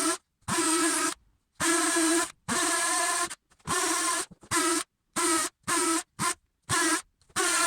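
Cordless DeWalt lithium-ion drill on hammer setting, driving an 8mm masonry bit into plaster and brick. It runs in about ten short bursts, each starting and stopping sharply with a brief rise in pitch as the motor spins up, as a row of closely spaced holes is drilled.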